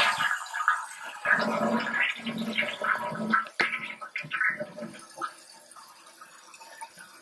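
American Standard toilet flushing as a test of its newly fitted float cup fill valve: a gurgling rush of water as the tank empties, which dies down after about five seconds to a faint hiss as the tank begins to refill.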